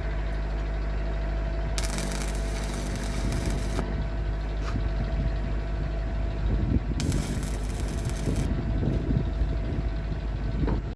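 Steady low hum of running machinery, with two bursts of harsh hissing noise of about two seconds and a second and a half, one about two seconds in and one about seven seconds in.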